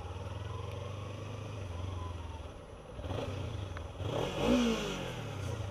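Kawasaki Ninja 300 parallel-twin engine running steadily at low revs, then revving up as the bike pulls away about three seconds in, with its pitch rising and falling.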